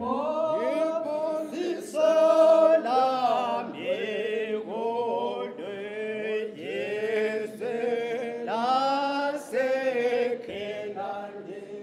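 A hymn sung a cappella, with a man's voice leading, in phrases of held notes and no instruments.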